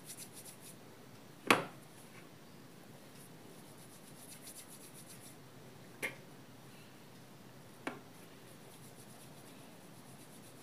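Hand rolling soft rice-flour dough into thin strands on a steel plate: faint rubbing of palm on dough and metal. Three sharp taps, the loudest about one and a half seconds in, two smaller ones later.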